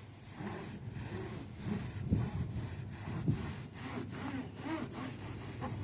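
Cloth rubbing over a paddleboard's foam deck pad in quick back-and-forth scrubbing strokes, about three a second.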